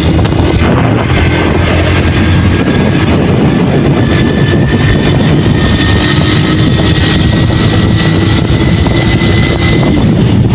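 Honda CD 70's small single-cylinder four-stroke engine running as the motorcycle speeds up from about 40 to 60 km/h, with wind rushing over a hand-held microphone.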